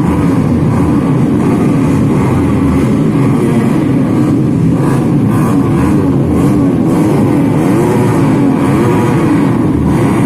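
Road-race motorcycle engines warming up, running loudly and revved so that the pitch keeps rising and falling.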